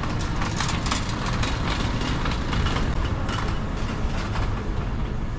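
City street noise: a steady low traffic rumble with a run of rapid rattling clatter that fades out near the end.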